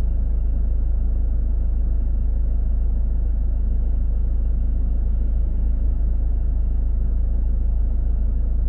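Steady low rumble of a car driving through city traffic: engine and tyre noise, even throughout with no distinct events.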